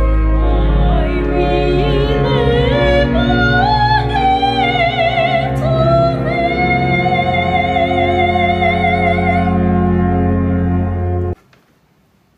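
A soprano sings a long closing phrase with wide vibrato over sustained church organ chords. Her voice ends on a held note about nine to ten seconds in, the organ chord holds a moment longer, then all sound cuts off abruptly.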